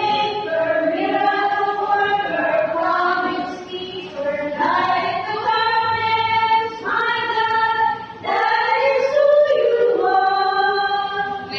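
Small mixed church choir of men and women singing together in held notes, phrase by phrase, with brief breaks about four and eight seconds in.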